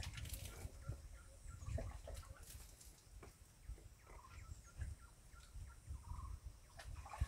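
Faint clucking of domestic fowl, a few short warbling calls, over an uneven low rumble and scattered small clicks.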